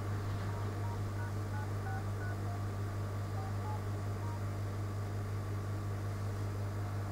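Smartphone dial-pad keys being tapped one after another, each press giving a short two-note touch tone: about ten tones in quick succession over the first four and a half seconds, and one more near the end. A steady low electrical hum runs underneath.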